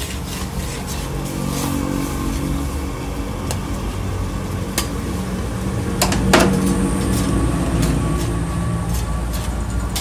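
Metal tongs and a spatula clinking and scraping against a wide steel karahi as chicken gravy bubbles in it over the burner, over a steady low rumble. The loudest clank comes about six seconds in.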